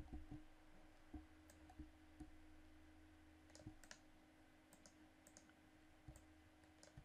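Faint clicks of a computer mouse and keyboard, a dozen or so scattered short clicks, over near-silent room tone with a low steady hum.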